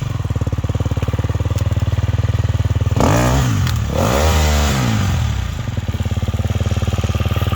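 Dirt bike engine idling with a quick, even firing pulse, revved up and back down twice in a row about three seconds in.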